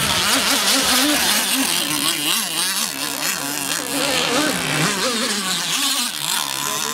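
Several radio-controlled racing catamarans running flat out, their motors' pitch rising and falling over and over as they throttle through the course.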